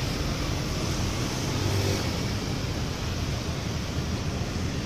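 Steady rushing background noise with a low rumble and no distinct events, like outdoor traffic or wind on the microphone.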